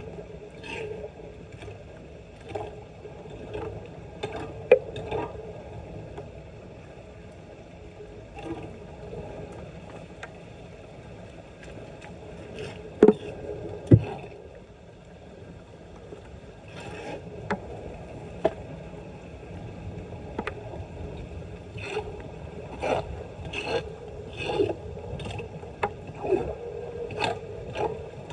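Irregular scraping and knocking as debris is cleared from a clogged street storm drain, over steady water noise from the floodwater. There are a few sharper knocks, two of them close together about halfway through, and the scraping gets busier near the end.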